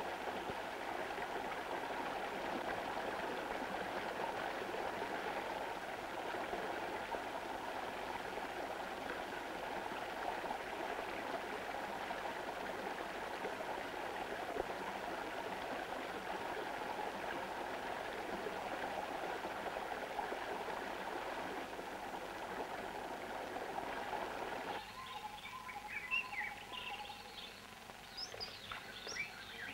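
Steady rush of a cascading mountain stream. It cuts off abruptly about 25 seconds in, giving way to quieter bush ambience with birds chirping.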